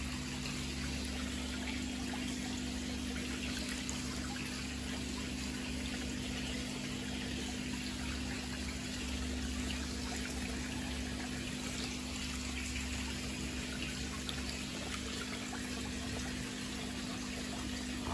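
Water trickling and pouring steadily into a koi tank, with a steady low hum underneath.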